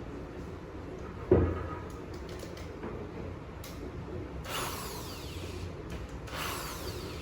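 A sharp knock about a second in, then a small electric drill whirring in two short bursts near the end.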